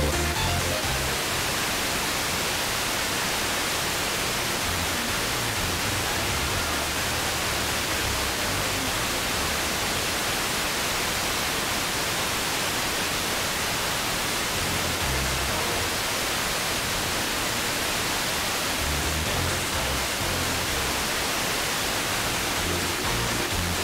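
Steady hiss of static from an FM receiver tuned to 92.2 MHz. The long-distance Sporadic-E signal has faded into noise, and the station's programme is all but gone.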